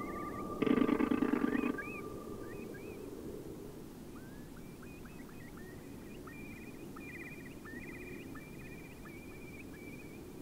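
One loud animal call, about a second long, near the start. After it comes a long run of short high chirps and trills over a faint steady hiss.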